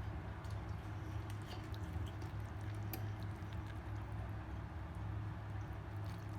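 Chewing and soft, wet squishing of a person eating rice and fried fish by hand, with scattered small clicks over a steady low hum.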